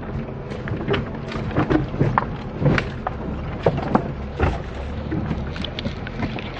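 Inside the cabin of a Chery Tiggo driving slowly over a track strewn with branches and boards: a steady low engine rumble under irregular knocks, cracks and rattles, several a second, as the wheels roll over the debris and the body and suspension jolt.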